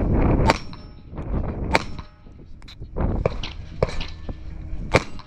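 Airsoft pistol fired in single shots, about seven spread unevenly over the few seconds, a couple of them followed by a metallic clang and ring.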